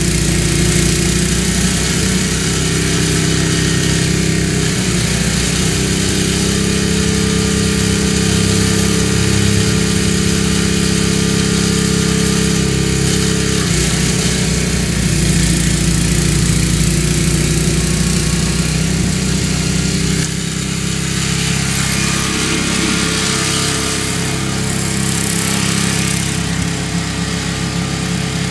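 MTD snowblower's Tecumseh engine running steadily under load while throwing heavy wet snow. The sound drops a little about twenty seconds in.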